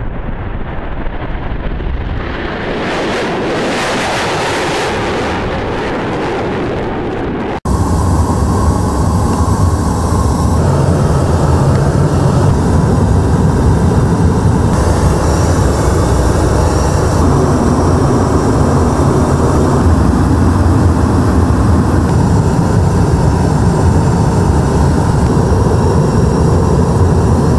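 Military aircraft engine noise. A rushing aircraft sound builds over the first few seconds. After a sudden cut about eight seconds in, the engines give a loud, steady low drone heard inside the cockpit.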